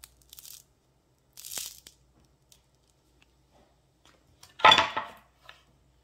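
Crusty, freshly baked ciabatta being handled on a wooden cutting board: a few short crackles of the crisp crust, the loudest about four and a half seconds in.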